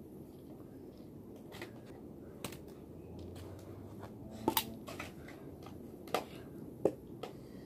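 Hard plastic parts of a computer keyboard and screwdriver set being handled: several sharp clicks and knocks a second or so apart, the loudest a quick pair about halfway through, over a low steady hum.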